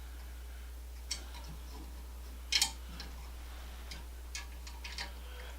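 Irregular light clicks and knocks from handling the exercise bike's front handlebar assembly, loudest as a quick double knock about two and a half seconds in, over a steady low hum.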